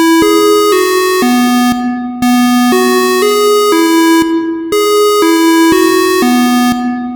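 Synthesized electronic alert melody: a short phrase of four or five steady, overtone-rich notes, each about half a second, repeating three times. It serves as the attention signal of a warning-system siren test.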